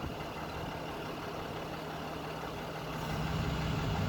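Motor vehicle engine idling, a steady low hum that grows a little louder about three seconds in.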